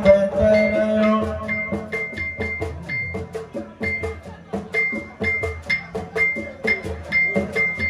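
Live band music in a break between sung lines: drums and percussion with a short, high, bell-like note struck over and over, about twice a second, and a held chord near the start.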